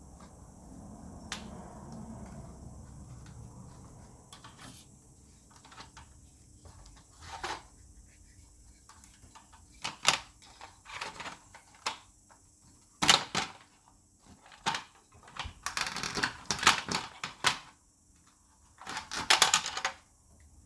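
Plastic and metal parts of a projector clicking and rattling as it is taken apart: a few sharp clicks at first, then short bursts of clattering in the second half.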